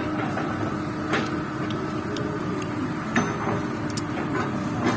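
Excavator diesel engine running steadily, with a few sharp knocks about a second, three seconds and five seconds in.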